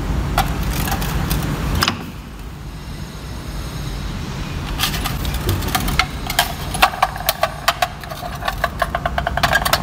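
Steel diesel-injector parts clinking against a stainless steel parts tray: a few single taps in the first seconds, then a quick run of small metallic clicks over the last few seconds. A steady low hum runs underneath.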